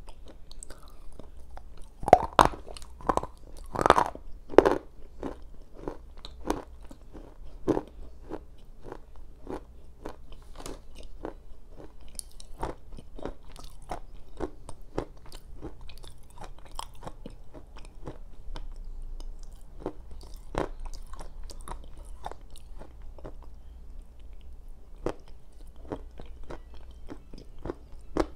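Biting and chewing a black slate bar, an edible clay softened by soaking, close to a lapel microphone. A few loud crunches come about two to five seconds in, followed by steady, softer chewing crackles.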